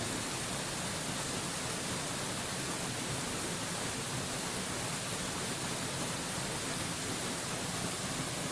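A waterfall's steady, unbroken rush of falling water, a hiss strongest in the high range that never changes.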